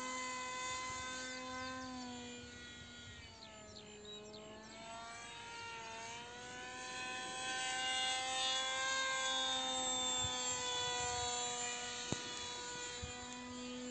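Electric RC jet model's 2217 2200kV brushless motor and 6×5.3-inch pusher propeller buzzing in flight: a steady whine whose pitch dips and climbs again a few times. It fades about four seconds in and grows louder again as the plane comes closer. A single sharp click comes near the end.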